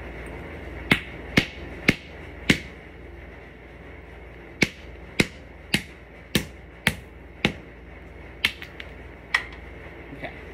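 Small hammer striking chalky plaster-like chunks on a hard floor: four sharp blows in the first couple of seconds, then after a short pause a steady run of blows about every half second.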